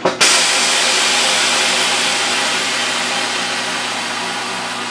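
Vehicle lift being lowered: a sharp click, then a loud, steady hiss of release that starts a fraction of a second in and slowly fades.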